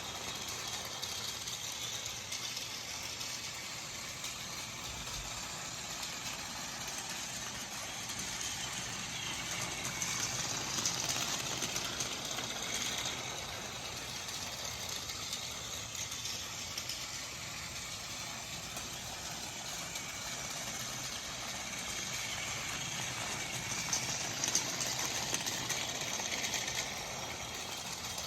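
Battery-powered Plarail Thomas toy train running on plastic track: the small motor whirs and the wheels and coupled cars rattle steadily, swelling a little louder at times.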